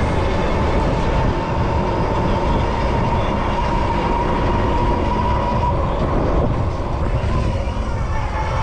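Heavy wind rumble and street noise from riding a Super73 ZX electric bike in traffic, with a steady high whine over it.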